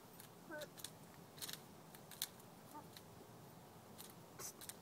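Faint hen sounds: a short, rising-and-falling call about half a second in, and a few sharp clicks scattered through.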